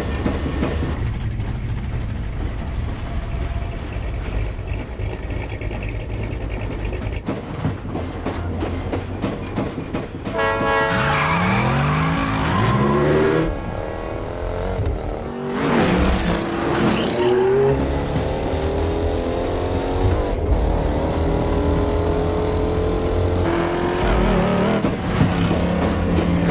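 Racing car engines, first a low steady rumble, then about ten seconds in revving hard and accelerating, the pitch climbing and dropping back through several gear changes, mixed with a film score.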